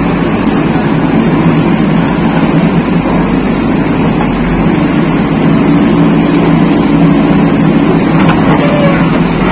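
JCB backhoe loader's diesel engine running steadily while its backhoe arm digs.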